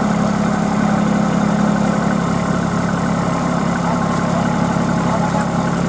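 Kubota B2441 compact tractor's three-cylinder diesel engine running steadily and evenly, with no revving, while the tractor is stuck deep in mud.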